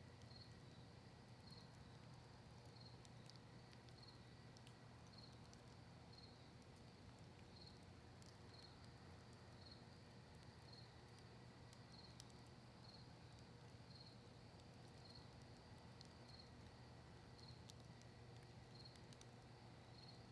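Faint campfire of cedar and maple wood with sparse, small crackles, while a cricket chirps steadily about once a second over a low steady hum.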